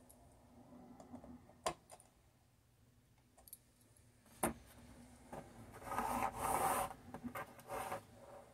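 Hands handling a mini PC and its mounting bracket on a mat: two sharp clicks, then a rubbing, scraping noise for about a second, followed by a few shorter rubs.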